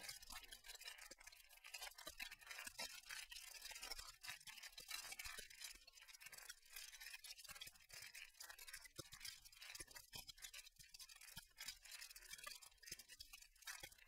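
Near silence: a faint hiss with scattered soft crackles.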